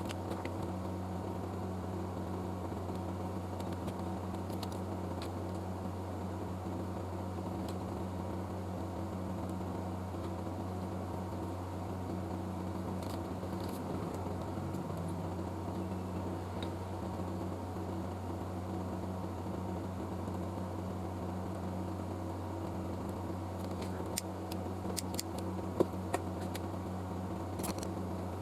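Steady low electrical hum, like a small fan or mains-powered motor, with a few faint clicks near the end.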